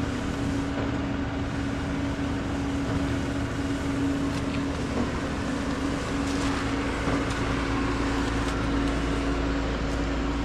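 Concrete mixer lorry's diesel engine running steadily with a constant hum, a few faint scrapes and clicks over it.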